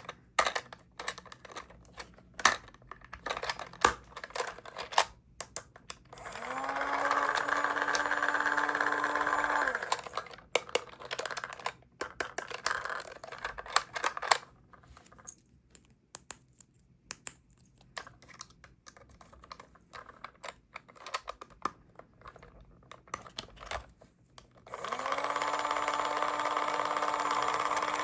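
Small plastic toy pieces clicking and tapping as they are handled and fitted together. Twice a small motor starts up, its whir rising quickly in pitch and then holding steady: once for about three seconds near the middle, and again near the end.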